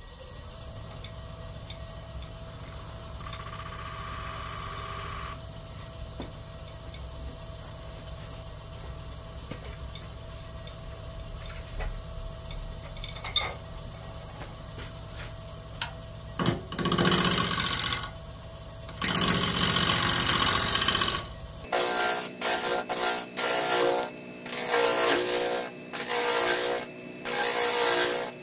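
Laguna Revo wood lathe spinning a heart-shaped ash blank, its motor running with a steady hum. About two thirds of the way in, a carbide turning tool starts cutting the ash with a loud scraping, and near the end the cutting comes in quick choppy bursts, sped up.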